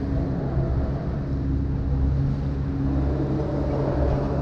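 Motorboat engine running steadily underway: a low, even hum over a rush of water and wind.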